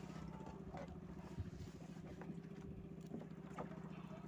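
Boat engine running steadily at low revs, an even low hum, with a few faint knocks from line handling on the hull.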